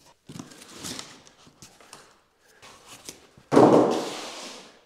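Thin aluminium sheet-metal kit parts and their cardboard packing being handled: a few short rustles and knocks, then a louder crash about three and a half seconds in that fades over about a second.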